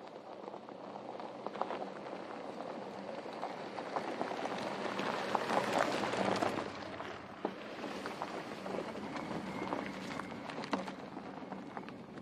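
Tyres of a Porsche Cayenne Turbo crunching and crackling over a loose gravel dirt track, with the twin-turbo V8 running at low revs as a faint steady hum underneath. The crunching swells to its loudest about halfway through, then eases.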